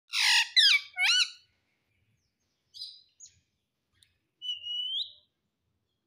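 Indian ringneck parakeet calling: three loud, harsh squawks in quick succession at the start, a couple of short, softer chirps, then a drawn-out whistle that rises at the end.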